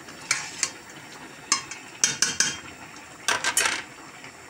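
A spoon stirring thick, reduced tomato and pepper sauce in a stainless steel pot, scraping and clinking against the pot's sides and bottom in irregular strokes, bunched around two and three and a half seconds in.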